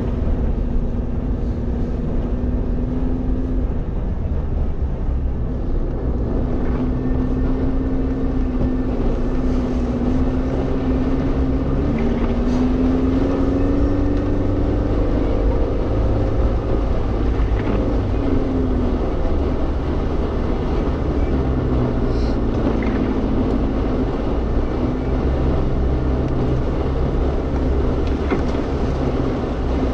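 Suzuki Jimny's engine running while off-roading, its pitch rising and falling with the throttle over a steady low rumble. A few faint knocks come through.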